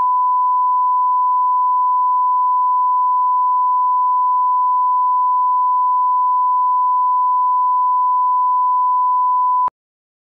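Steady 1 kHz sine reference tone, the line-up tone that runs with colour bars at the head of a broadcast tape for setting audio levels. It cuts off abruptly with a click near the end.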